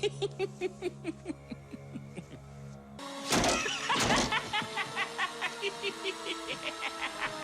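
Chucky, the killer doll from the Child's Play films, laughing in a long fast run of "ha"s, about five a second, sinking in pitch over the first three seconds. About three seconds in, two loud sweeping whooshes cut across it, and then the laughter starts again.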